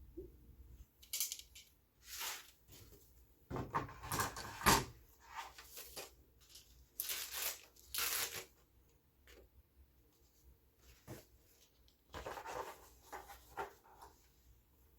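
Packaging being handled: rustling, crinkling and tearing in irregular bursts, loudest about four and seven seconds in, with a last cluster near the end.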